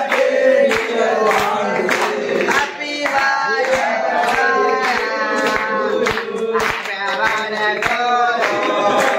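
A group of young men singing together while clapping in time, a little under two claps a second.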